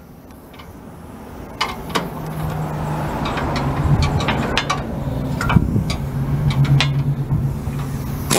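Air impact wrench with a long socket running on the tow-hook nuts of a truck bumper, with sharp metallic clicks. A steady humming drone sets in about two seconds in.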